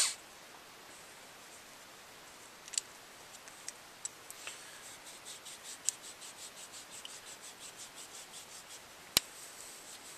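Scrubbing pad in a bolt carrier cleaning tool rubbing carbon fouling out of an AR-15 bolt carrier. A faint, quick rhythmic scrape of about four strokes a second sets in about four seconds in, after a few light metal clicks, with one sharp click near the end.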